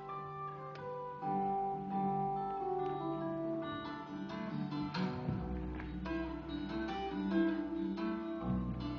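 Acoustic guitar music, plucked and strummed, with held notes and chords.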